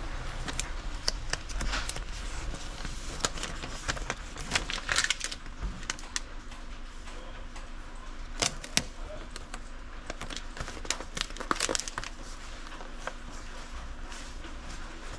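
Paper shipping labels being handled and shuffled between the fingers: scattered crinkles and sharp clicks, with clusters of louder rustling about five seconds in and again near twelve seconds.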